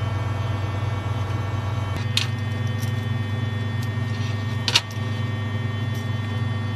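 Loud, steady engine drone heard inside a military transport's cabin, with two sharp metallic clicks about two and five seconds in.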